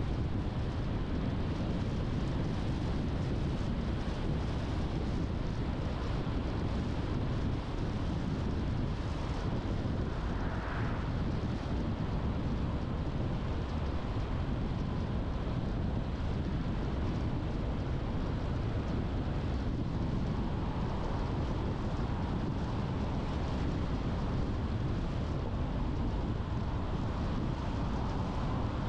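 Steady rumble of a car driving along a road, tyre and engine noise with no breaks. A brief, faint higher sound comes about ten seconds in.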